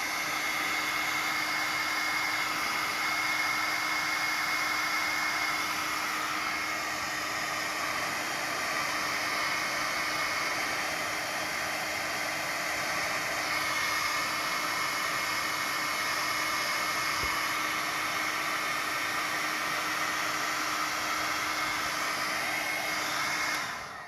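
Electric heat gun running steadily, blowing hot air to shrink heat-shrink tubing over soldered wire joints: a constant rush of air with a faint high whine, switched off near the end.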